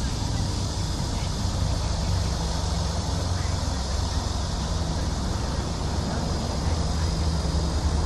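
Wind buffeting the microphone with a steady low rumble, over a steady high-pitched drone of cicadas and a few faint bird chirps.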